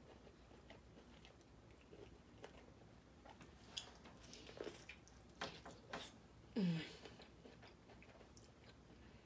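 Faint close-up biting and chewing of boiled corn on the cob, with small wet crunches and clicks clustered between about 3.5 and 6 seconds in. Near 7 seconds comes a brief hum from the eater, falling in pitch, which is the loudest sound.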